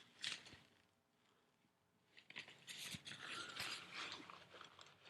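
Faint scraping and clicking of hands working on a battery-powered coil cleaner as it is taken apart, with a silent pause of about a second and a half before the handling picks up again.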